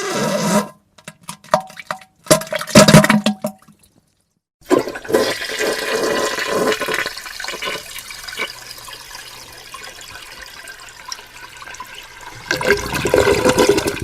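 Short wet spluttering bursts of diarrhea-like fart sounds, then, after a brief pause about four and a half seconds in, a toilet flushing: a long rush of water that fades and swells again near the end.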